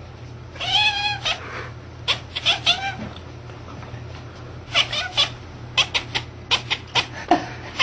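Domestic cat chirping and chattering while it watches something outside: one wavering trill about a second in, then quick clusters of short, clipped chirps.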